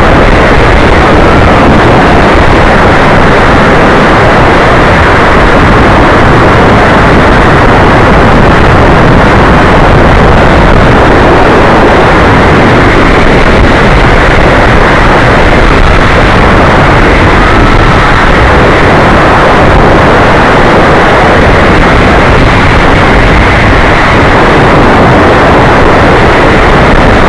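Skyrush roller coaster ride heard from an on-board camera: the train's rumble on the track buried under heavy wind blasting the microphone as the coaster runs at speed. Loud and unbroken, with no let-up.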